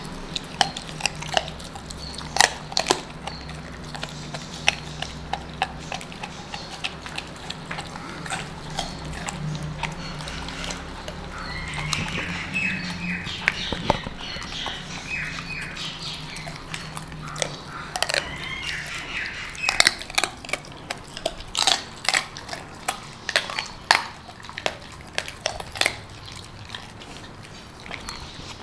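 A Rottweiler crunching and chewing raw chicken feet: irregular sharp cracks of bone and gristle breaking between its teeth, with wet chewing in between. A low steady hum runs beneath and stops about two-thirds of the way through.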